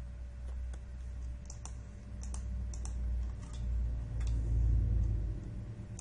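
Clicks from a computer mouse and keyboard, a dozen or so short sharp ones scattered unevenly through. A low rumble swells about four to five seconds in and is the loudest sound.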